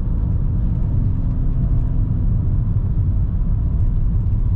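Steady low rumble of a 2004 BMW 325xi on the move: its 2.5-litre inline-six running smoothly under road and tyre noise, the misfire cured by new ignition coils.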